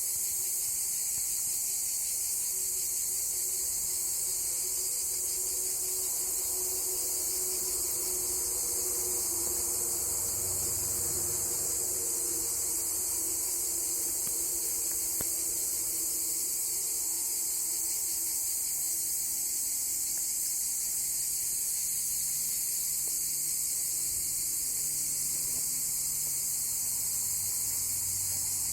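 Dense insect chorus, high-pitched and continuous at a steady level.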